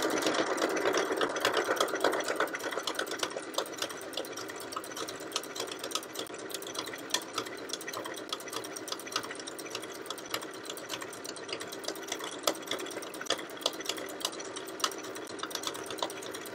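Janome electric sewing machine running continuously, sewing a satin (filete) zigzag stitch, with a fast patter of needle ticks over its motor hum. It runs a little louder for the first two or three seconds, then settles steady.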